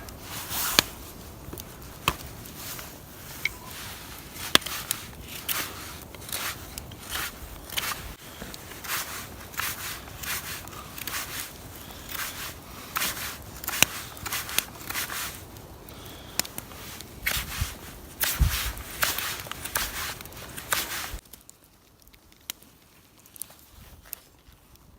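Knife carving a wooden spoon blank: a run of short, irregular cutting and scraping strokes on wood that stops about 21 seconds in.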